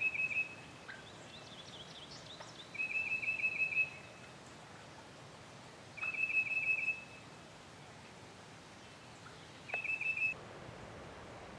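A songbird singing a short trilled phrase of quick, even notes on one high pitch, repeated four times about every three seconds. Another bird chirps faintly and higher in the first couple of seconds.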